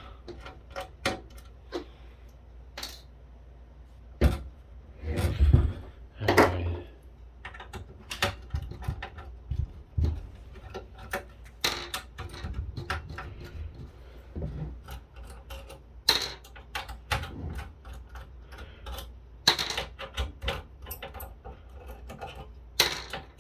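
A circuit board being worked loose by hand from a metal electronics chassis: irregular clicks, clacks and scrapes of metal and board parts, with a louder run of knocks about five to six and a half seconds in.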